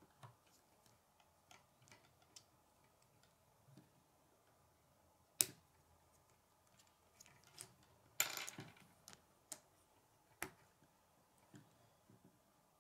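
Plastic K'nex rods and connectors clicking and snapping together as they are handled and fitted: scattered light clicks, a sharp snap about five seconds in, a short rattling clatter a little after eight seconds, and another sharp snap about ten seconds in.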